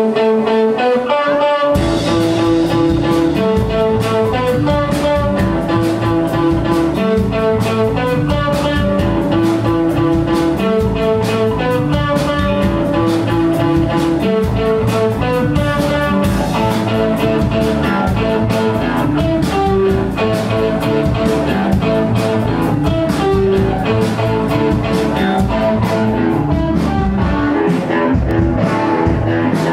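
Guitar-led rock music: an electric guitar riff, joined by drums and bass about two seconds in.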